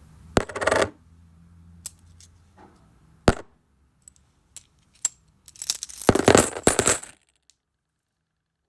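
Coins dropping onto a hard surface. A first drop with a short jingle comes just under a second in, then single clinks and scattered ticks, then a longer burst of coins rattling and settling about six to seven seconds in.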